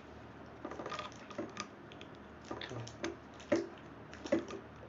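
Scattered clicks and knocks from a mobile phone holder being fitted and tightened on a tripod, the two loudest knocks about three and a half and four seconds in.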